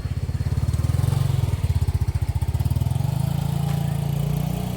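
A small engine running steadily with a rapid putter, loudest about a second or two in.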